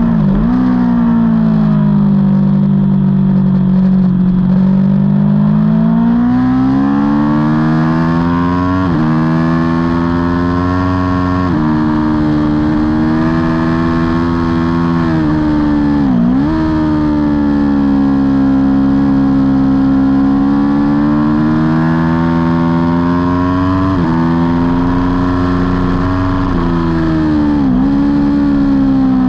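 Aprilia Tuono V4's V4 engine at racing revs, heard on board: the pitch climbs and falls through the lap, broken by several brief sharp dips from gear changes.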